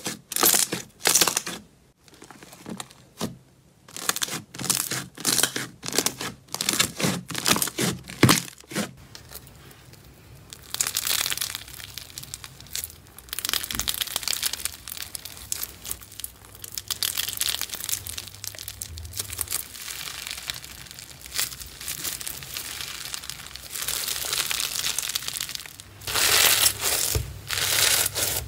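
Hands pressing and poking slime, giving a series of sharp, separate pops for the first several seconds; then, from about ten seconds in, hands squeezing and kneading bead-filled floam slime, a dense continuous crackling crunch.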